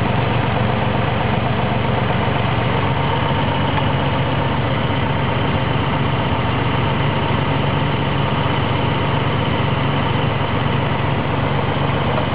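Chevrolet Corvair's air-cooled flat-six engine idling steadily at about 900 RPM, with manifold vacuum holding a steady 19 inches, the sign of a smooth, healthy idle.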